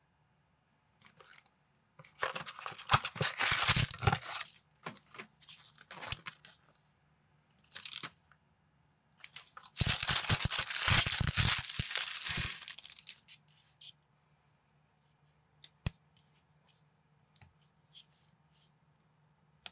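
Packaging of a building-block minifigure set being torn open. There are two long bursts of tearing and crinkling, about two seconds in and again about ten seconds in, as the box and its plastic parts bag are opened. A few light clicks of small plastic pieces follow near the end.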